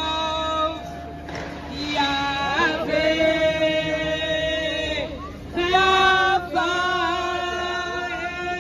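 Worship song sung in long held notes, led by a woman singing into a handheld microphone, with other voices joining in; the phrases pause briefly about a second in and again about five seconds in.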